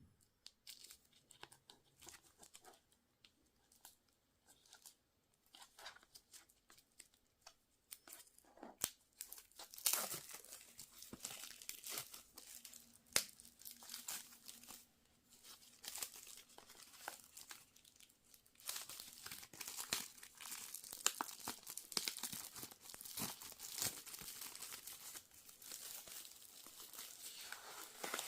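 Faint handling clicks, then plastic wrapping being torn and crinkled off a boxed Blu-ray set. The crackling gets denser and louder over the second half.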